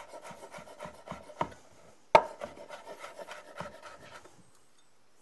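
Chef's knife finely chopping fresh oregano leaves on a wooden cutting board: a quick run of short knocks of the blade on the wood, with one sharp, louder knock about two seconds in. The chopping stops shortly before the end.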